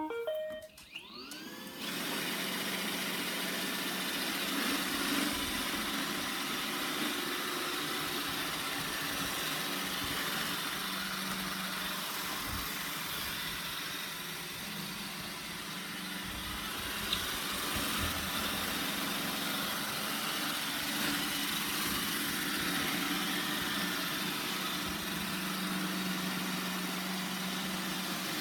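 iRobot Roomba 960 robot vacuum starting up: a few short beeps at the very start, its motors spinning up with a rising whine over about two seconds, then running steadily with a hiss and a low hum.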